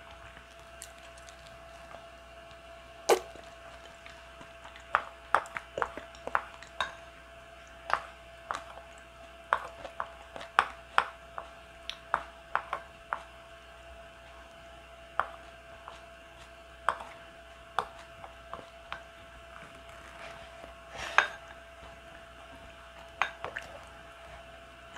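Wooden spoon scooping thick porridge from a ceramic bowl, with light clinks and scrapes against the bowl at irregular intervals, over a faint steady hum.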